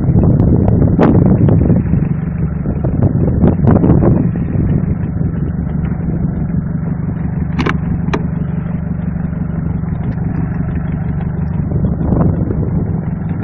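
Small fishing boat's engine running steadily, with water sloshing around as a gillnet is hauled in over the side; two sharp knocks about eight seconds in.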